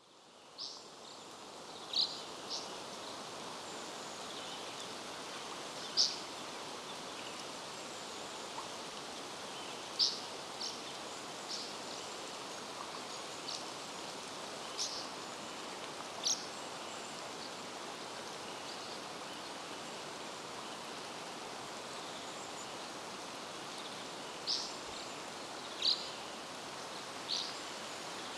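Steady outdoor ambience at a forest lake: an even hiss that fades in at the start, with scattered short, high-pitched chips or ticks every second to few seconds.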